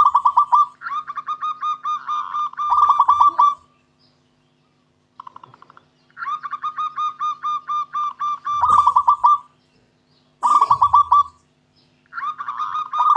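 Zebra dove (perkutut) cooing song: several phrases of quick, evenly repeated short coos, with brief pauses between the phrases.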